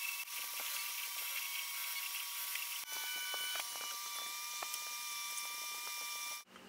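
MakerBot Replicator 2 3D printer running: its stepper motors whine in several steady high tones, with light ticking as the print head moves. The tones change about three seconds in, and the sound cuts off just before the end.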